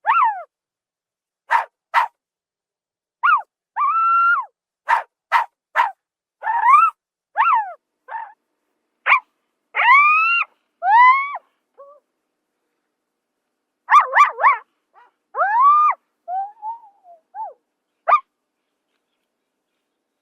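Zebra giving a string of short, high barking calls, each a quick yelp that rises and falls in pitch. The calls come singly or in quick clusters, with a longer pause a little after the middle.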